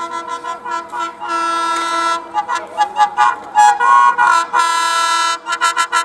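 Horn of an Alco WDM-3A diesel locomotive sounded madly: runs of rapid short toots broken by two longer blasts, ending in a fast string of about five toots a second.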